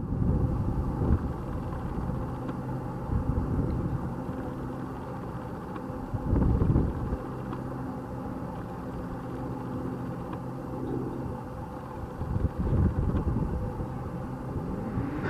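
Low, uneven engine rumble with gusty swells, and a steady hum; near the end a rising engine tone.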